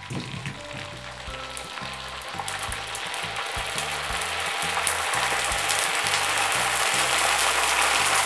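Dried pork skins deep-frying in hot oil, sizzling and bubbling vigorously as they puff up into crackling. The sizzle grows steadily louder as the frying takes hold.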